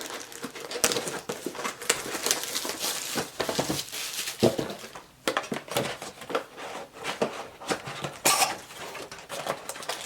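A sealed hobby box of trading card packs being unwrapped and opened by hand: a continuous run of rustling, crinkling and small clicks from the wrapper and cardboard.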